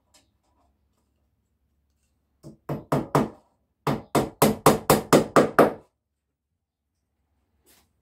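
Hammer striking repeatedly along the cedar frame of a beehive's mesh floor, fastening the wire mesh down. A quick group of four blows, a short pause, then a faster run of about eight blows.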